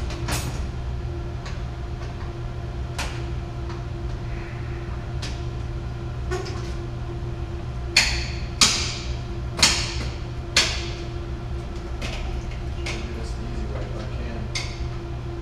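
Clicks and metallic knocks of hand tools and hardware as a motor control center bucket is worked on, scattered through, with four louder sharp clicks in quick succession about halfway. Under them runs the steady electrical hum of the switchgear room.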